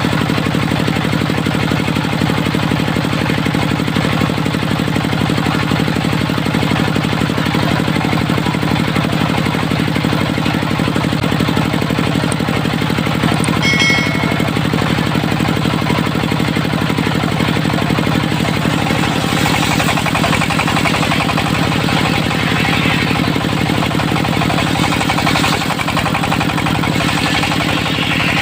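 Dongfeng stationary diesel engine running steadily, driving a mobile circular sawmill, with a rapid, even knocking beat. A brief high tone sounds about halfway through.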